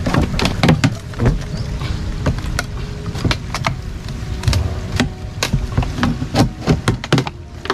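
Wooden pole jabbed into the hole of a hollow plastic float, knocking and scraping against it in an irregular string of short knocks, over a steady low rumble.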